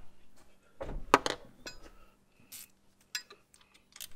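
Metal hand tools clinking and knocking against engine-bay parts: scattered sharp clinks, the loudest about a second in and a cluster near the end.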